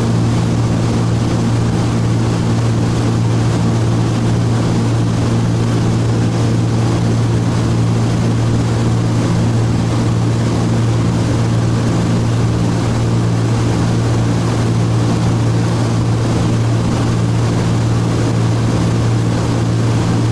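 Cabin drone of a Cessna T303 Crusader's twin piston engines and propellers in cruise, heard from inside the cockpit: a steady, loud low hum with rushing air noise over it.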